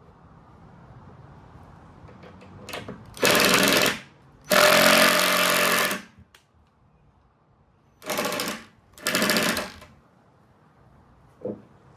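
Ryobi cordless impact driver hammering in four bursts, the first two longer and the last two short, as it tries to drive a long screw into hardwood. It is not strong enough to sink the screw. A single knock follows near the end.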